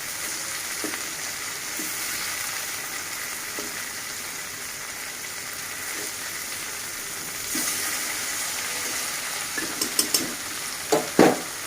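Pieces of hilsa fish frying in hot oil in a pan: a steady sizzle. Near the end come a few short, louder clatters.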